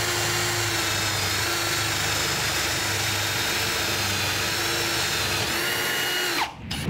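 Milwaukee cordless drill boring a leg hole into a wooden Windsor chair seat, its motor running at steady speed under load. Near the end the trigger is released and the motor winds down with a falling whine.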